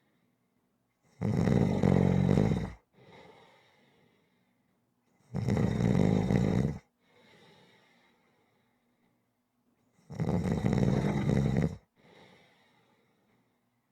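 Rhythmic snoring: three loud snores about four seconds apart, each lasting about a second and a half, with a much softer breathy exhale after each.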